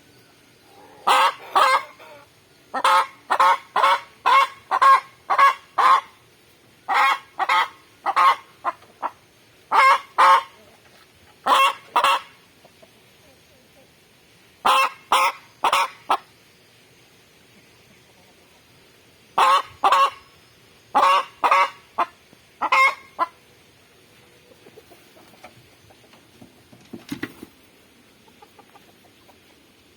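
Aseel chicken clucking in quick runs of short, loud calls separated by pauses, stopping a few seconds before the end, after which only faint small sounds remain.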